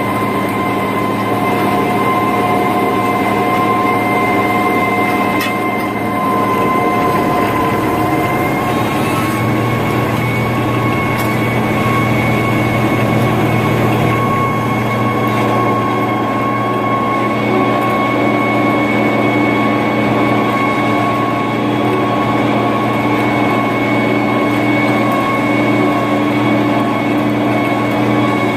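International Harvester 3588 2+2 tractor's six-cylinder turbo diesel running steadily under load while pulling a 25-foot disc through corn stubble, heard from the cab as a loud steady drone with a high whine over it. The low drone grows stronger about nine seconds in.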